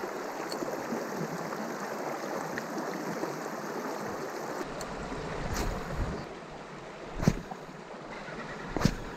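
Shallow creek water running over rocks, a steady rush that drops away about six seconds in. Then come several sharp thumps, the loudest two in the last two seconds.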